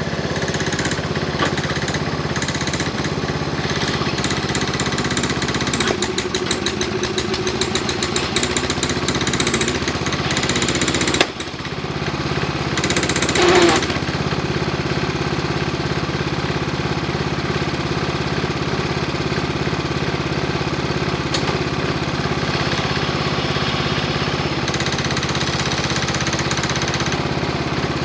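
Craftsman garden tractor's engine running steadily while its homemade front-end loader digs dirt. A sharp knock comes about eleven seconds in, and a short, louder burst of noise follows a couple of seconds later as the bucket works into the dirt pile.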